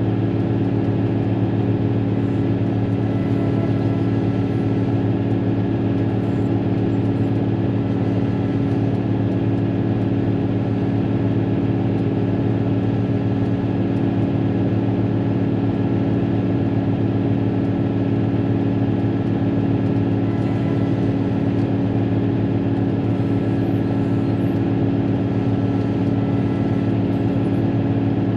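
Caterpillar motor grader's diesel engine running steadily as the grader works along, heard from inside the cab, with faint steady higher tones above the deep engine note.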